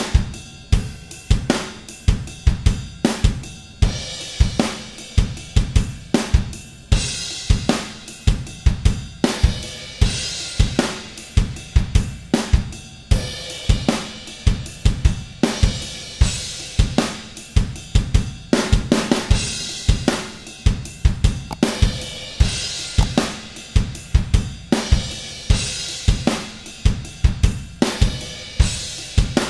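Drums-only track played by the EZdrummer 2 virtual drum kit (Modern kit): a steady beat of kick, snare and hi-hat, with cymbal crashes about every three seconds.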